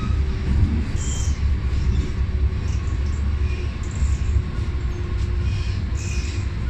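MTR M-Train electric multiple unit running on the Tsuen Wan Line: a steady low rumble of wheels on track, with brief faint high squeaks and short hissy swishes now and then.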